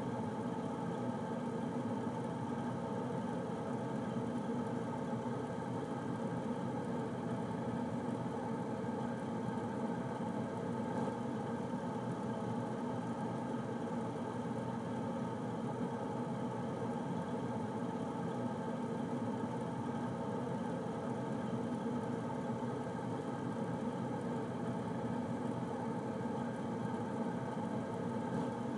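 Air conditioner running steadily: an even whir and hum with no change in level.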